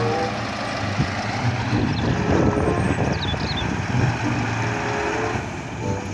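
Heavy eight-wheeled dump truck's diesel engine running steadily under load as the truck crawls over uneven ground.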